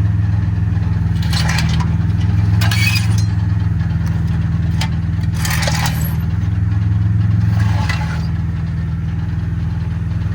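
Car engine running with a steady low hum, with four short scraping, clinking noises over it at irregular intervals.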